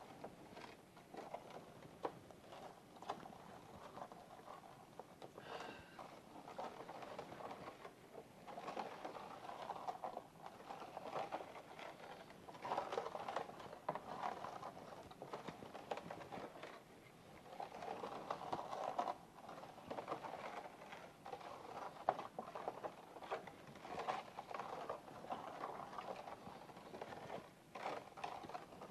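Handling noise: irregular small clicks and taps with rustling that swells in stretches of a second or two.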